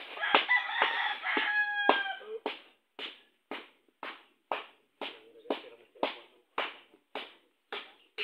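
A rooster crowing once for about two seconds at the start, over background music with a steady drum beat of about two hits a second.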